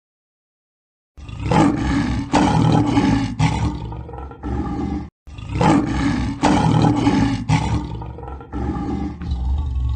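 Lion roaring: a run of loud, rough roars starts about a second in, breaks off sharply around five seconds, and starts again at once in a near-identical run.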